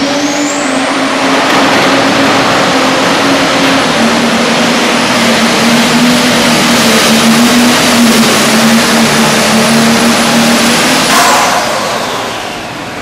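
Pro Stock pulling tractor's turbocharged diesel engine at full throttle, hauling a weight-transfer sled, with a high whine that climbs in the first second and then holds. The engine note steps down slightly about four seconds in. About eleven seconds in the throttle comes off and the sound falls away as the run ends.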